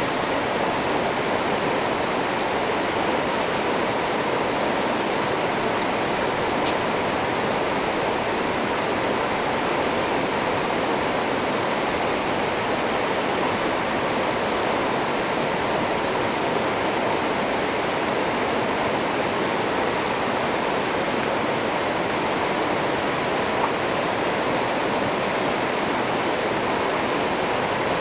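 River rapids rushing steadily over rocks, a constant even white-water noise.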